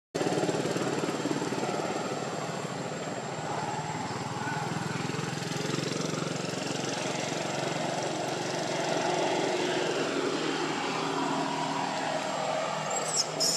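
A steady motor drone, with a few short high chirps near the end.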